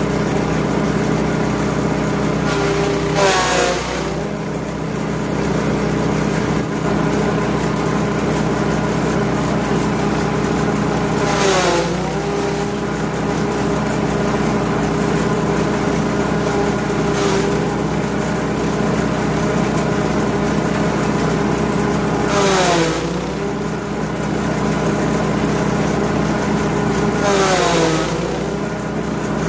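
Grass chopper driven by a 5.5 HP petrol engine, running steadily. Four times at uneven intervals the engine pitch dips for about a second with a burst of rushing noise, the engine pulling down under load as fodder goes through the blades, then picking back up.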